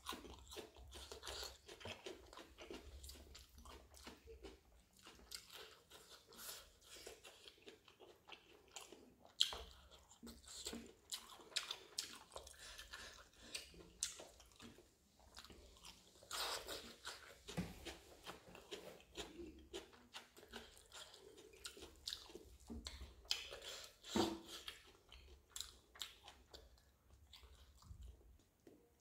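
A person chewing and biting roasted chicken at close range: a dense run of short, irregular mouth clicks and crunches.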